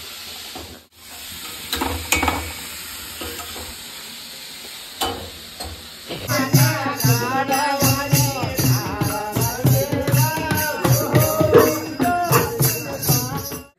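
For the first six seconds, a steady sizzling hiss of frying with a few clicks. About six seconds in it gives way to a group singing a village Holi song over a steady rhythmic beat of hand percussion, which cuts off at the end.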